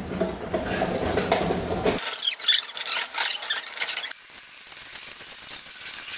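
A low rumble at first. About two seconds in it gives way abruptly to the crackling, squeaky rustle of plastic stretch wrap being pulled and torn off a large wrapped cabinet.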